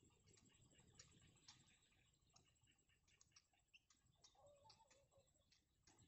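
Near silence, with faint scattered ticks and clicks and a brief faint wavering call a little past the middle.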